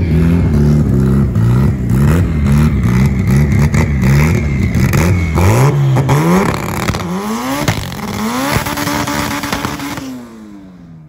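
Drag pickup's engine revved hard over and over, the revs bouncing up and down, then climbing in several rising sweeps as its rear wheels spin in a smoky burnout, with crackling throughout. The sound fades near the end.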